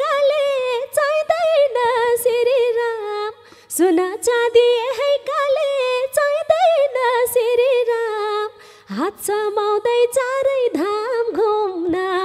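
A woman singing a Nepali dohori verse solo into a microphone, with no instruments behind her, pausing briefly twice.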